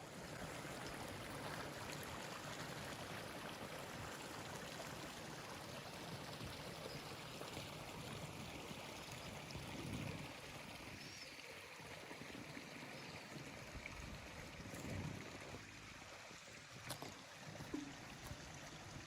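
Running water of a mountain stream, a steady rushing hiss, with a few soft low thumps of wind or handling on the microphone.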